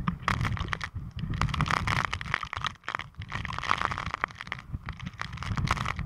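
Typhoon wind gusting against the microphone as a rumble that rises and falls, with many sharp ticks of raindrops striking the camera.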